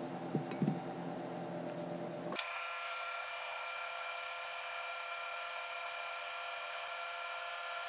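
A steady hum with several steady tones, with a few faint clicks in the first second; the hum turns thinner and higher-pitched abruptly about two and a half seconds in.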